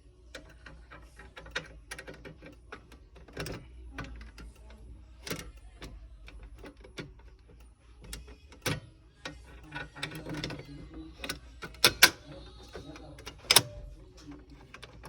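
Irregular clicks, taps and knocks of small objects being handled close to the microphone, a few sharper knocks near the end, over a low hum and a faint steady high-pitched whine.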